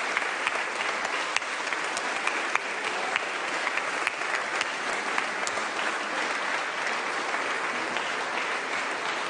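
Sustained applause from a crowd of supporters, steady dense clapping with sharp individual claps standing out throughout.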